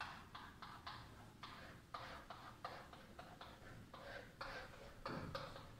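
Pen writing on a whiteboard: a quick, irregular run of short, faint scratchy strokes and taps as letters and brackets are drawn.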